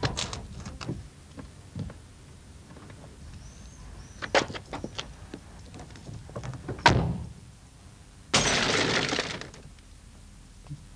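A car door shuts with a single heavy thunk. About a second and a half later the car's side window shatters in a loud crash of breaking glass lasting just over a second. Before that come a few light clicks and knocks.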